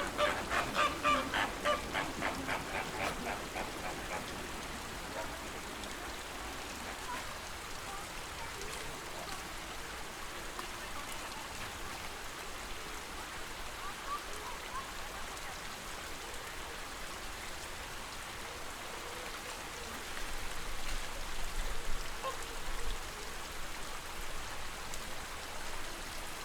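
Flamingos honking in a rapid, goose-like chatter for the first few seconds, with a few scattered calls later, over the steady wash of lake water. A low rumble rises for a few seconds near the end.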